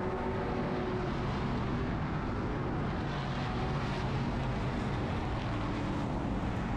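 Race truck's engine running steadily at low speed as the truck rolls slowly off the track, heard through a hood-mounted onboard camera.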